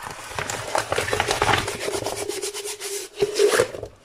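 Hands rubbing and rolling a diamond-painting canvas, a dense run of rustling and crackling from the canvas and its plastic cover film.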